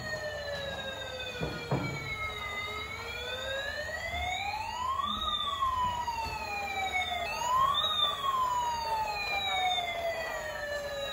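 Battery-operated toy fire truck's electronic siren wailing: a tone that slides slowly down, sweeps up twice, and falls again.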